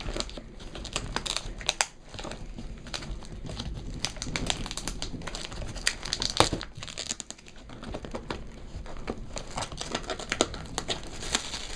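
Packaging being unwrapped by hand: a steady run of crinkling and crackling with some tearing.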